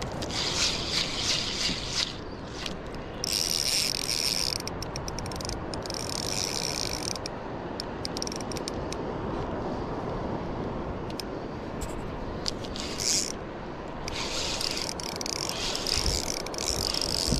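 Spinning reel being cranked to retrieve line, a ratcheting whirr in five spells separated by short pauses.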